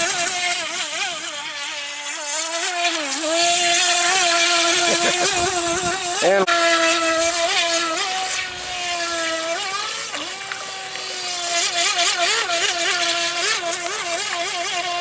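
Radio-controlled model boat's motor whining at speed, its pitch wavering and dipping again and again as the hull bounces over waves, over a steady hiss.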